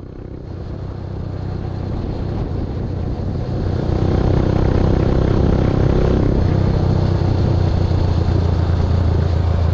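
Motorbike engine running with road noise while riding, a steady low hum that grows louder over the first four seconds and then holds steady.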